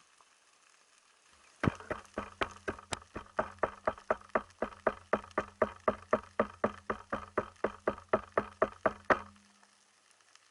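Regular mechanical clicking, about four clicks a second, over a steady low hum; it starts about two seconds in and stops sharply near the end.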